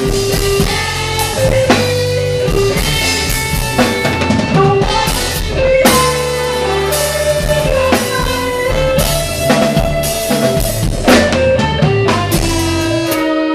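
Live band music: drum kit and congas keeping a steady beat under a bass line and held melody notes.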